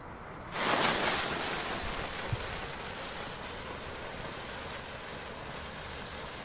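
Small ground firework lit and spraying sparks in place, giving a hiss that starts suddenly about half a second in, loudest at first and then burning on steadily.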